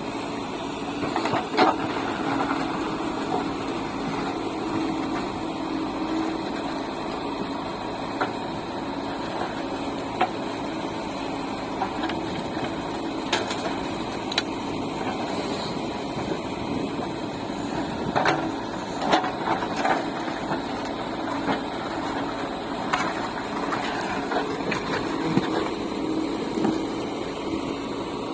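Heavy diesel machinery running steadily, with scattered knocks and clanks of loading work.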